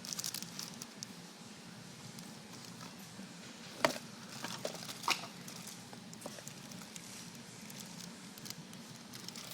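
Handling noises from unboxing a smartphone: a short rustle, then two sharp clicks about four and five seconds in, with a few lighter ticks, over a steady low hum.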